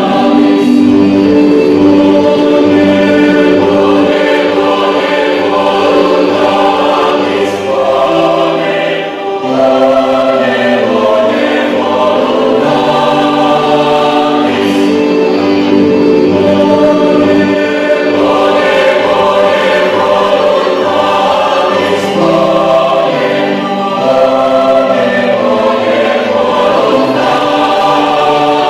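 A choir singing a Christian song, holding chords in several parts, with a short break between phrases about nine seconds in.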